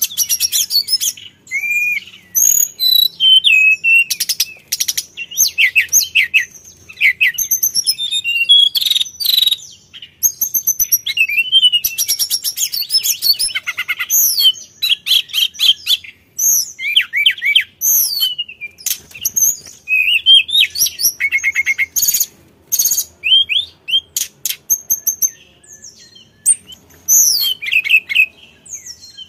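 Hill blue flycatcher (sulingan, tledekan gunung) singing a long, loud run of fast, varied high whistled phrases, broken by short rapid trills and brief pauses.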